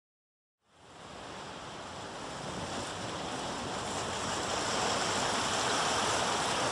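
A steady rushing noise, like surf or wind, that fades in about half a second in and slowly grows louder to the end.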